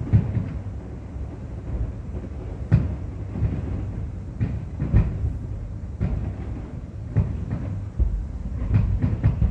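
Aerial fireworks shells bursting at a distance: dull booms every second or two over a steady low rumble.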